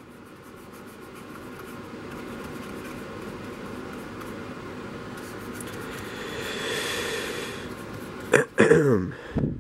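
Paintbrush bristles scrubbing and rubbing a thin paint wash over the plastic body of a model locomotive, a soft scratchy hiss that grows louder over several seconds. A brief voice sound near the end.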